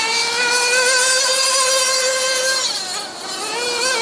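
Alpha Plus nitro engine in an RC buggy at full throttle, a steady high-pitched whine held for about two and a half seconds, then lifting off and coming back on with a wavering pitch near the end.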